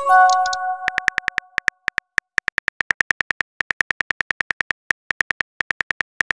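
Simulated phone-keyboard key clicks from a texting-story app, a rapid run of sharp ticks, about seven a second, as a message is typed letter by letter. A short bell-like chime rings out and dies away over about a second at the start.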